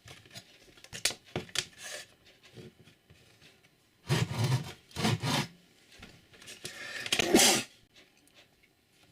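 Handling of wood and tools: scattered clicks, then three short bursts of rubbing and scraping about four, five and seven seconds in.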